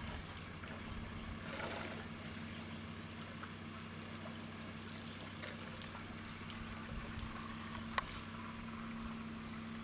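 A steady low mechanical hum, like an idling engine, under faint splashing and trickling of water as elephants drink with their trunks, with a single sharp click about eight seconds in.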